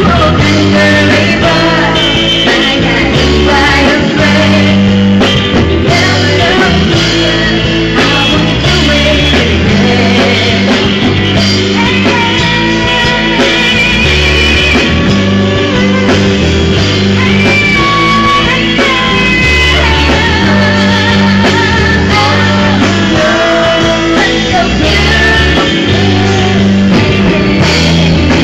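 Live rock band playing loud and steadily, with a woman singing lead into a handheld microphone over guitar, bass and drums. Her voice wavers on long held notes.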